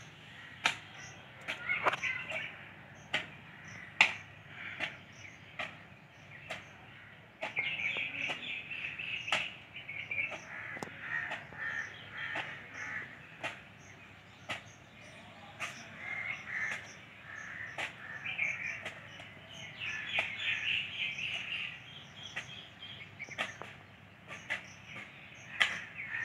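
Crows cawing repeatedly, over sharp irregular knocks that come about once a second.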